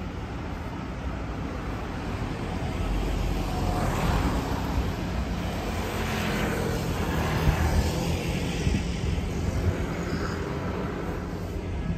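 City street traffic: vehicles passing with a steady rumble that swells and fades a few times as they go by.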